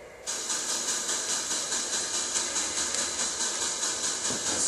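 Small electric model train locomotive running on the track, its motor and gears whirring with a hissing sound that pulses about four to five times a second. It starts abruptly just after the start. The engine is one that runs poorly and needs help getting going.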